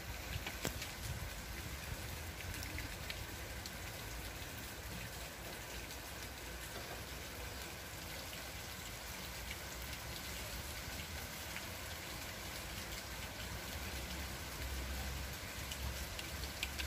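Light rain falling steadily: an even hiss with scattered single drops.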